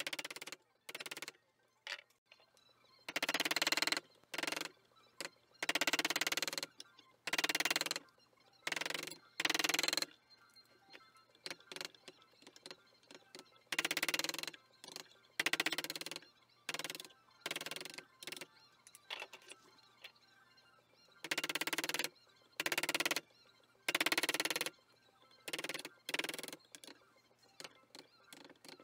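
Hand-pushed woodcarving chisel cutting into the end grain of a log slice: a series of separate cuts, each lasting a fraction of a second to about a second, at irregular intervals.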